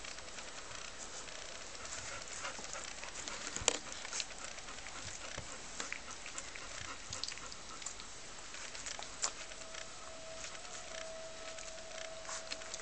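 A litter of puppies nursing and shuffling against their mother dog: soft rustling and small clicks, one sharper click a few seconds in, and a thin steady whine through the last few seconds.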